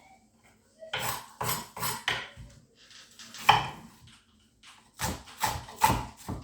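Irregular clatter of kitchen utensils and dishes being handled on a hard surface: sharp knocks in short clusters, a few about a second in, one in the middle, and a quicker run of five near the end.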